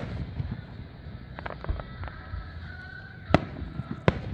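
Aerial fireworks shells bursting: a sharp bang at the start and two more near the end, with lighter crackles in between, about a second and a half in.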